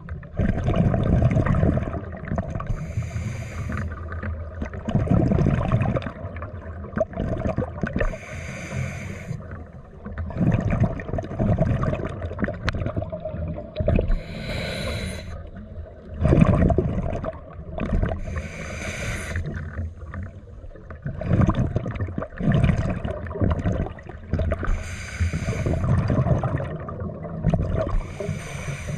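Scuba regulator breathing underwater: short hissing inhalations alternate with longer bursts of exhaled bubbles rumbling, in a slow steady cycle of several breaths.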